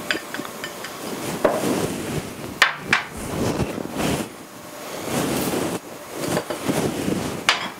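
Silicone spatula scraping and knocking the inside of a small ceramic bowl to empty it into a stainless steel measuring jug: several uneven scrapes with a few sharp taps.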